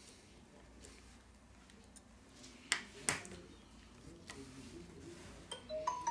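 Two sharp clicks about half a second apart, as parts are pressed and snapped into place on a Huawei P30 smartphone's mainboard during reassembly. Near the end, a few short, high-pitched pings at different pitches.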